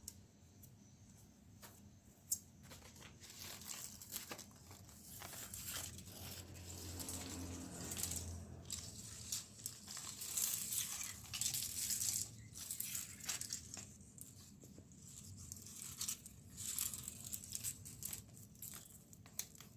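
Thin plastic sheet crinkling and crackling as it is handled and pressed into place, in irregular bursts that are busiest in the middle, with one sharp click about two seconds in.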